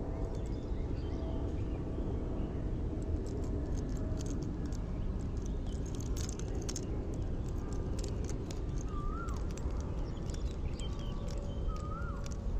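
Steady outdoor background rumble with a few light clicks around the middle, then three short bird chirps, each a quick rise and drop, in the last few seconds.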